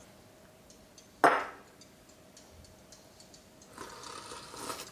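A single sharp knock about a second in, as a crisp bowl of nurungji (scorched-rice crust) is handled and lifted off a plate, with a few faint ticks and a short rustle near the end.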